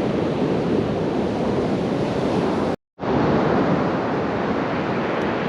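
Surf breaking on a sandy beach, a steady wash, with wind on the microphone. The sound drops out completely for a moment about three seconds in.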